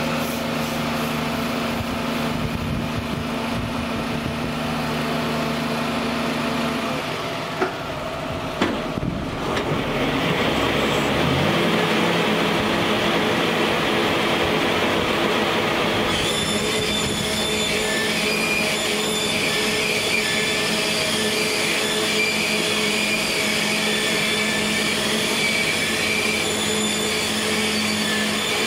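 Krone 450 GD forage wagon unloading chopped grass behind its tractor: the tractor engine and the wagon's unloading drive make a steady machine drone. There are two short knocks about eight seconds in, the drone changes pitch about eleven seconds in, and thin high metallic whining tones join from about sixteen seconds on.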